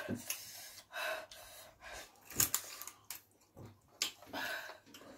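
Close-up eating sounds: irregular chewing, smacking and short clicks of a mouth, with breaths in between.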